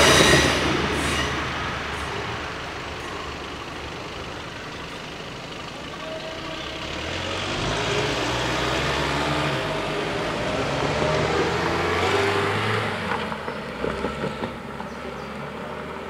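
Level crossing clearing: a LINT 41 diesel railcar fades away over the first couple of seconds. A steady low hum follows while the crossing barriers lift, and cars roll across near the end.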